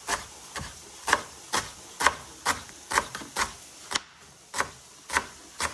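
Kitchen knife chopping cilantro finely on a cutting board: a steady run of sharp knocks as the blade strikes the board, a little over two a second, with one slightly longer gap about four seconds in.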